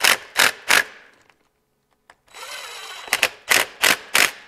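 Cordless power driver running the quarter-20 cover bolts on an aluminum PTO case. It gives three short trigger bursts, then a steady run of about a second, then four more short bursts.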